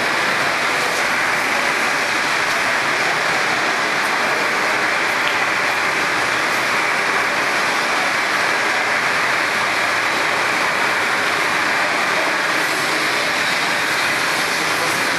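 A steady, loud rushing noise with no distinct tones or beats, unchanging throughout.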